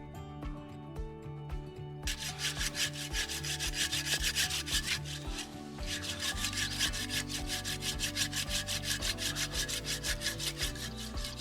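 Rapid back-and-forth rubbing strokes, several a second, starting about two seconds in with a brief pause near the middle, over background music.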